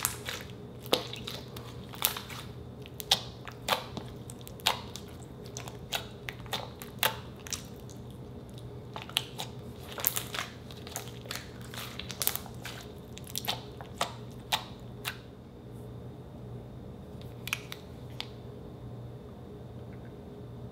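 Thick white slime squeezed and kneaded by hand, giving a string of sharp popping clicks and squishes, irregular and a few a second, that die away about three-quarters of the way through. A steady low hum runs underneath.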